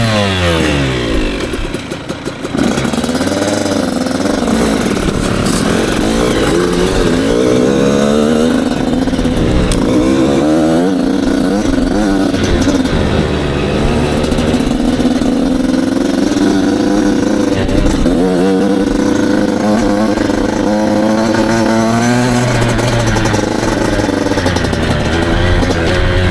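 Dirt bike engine running close to the microphone as it is ridden, its pitch rising and falling again and again as the rider works the throttle and gears.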